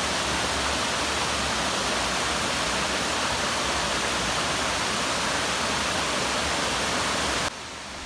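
Lower Cascades waterfall: a steady, even rush of falling water that cuts off suddenly near the end.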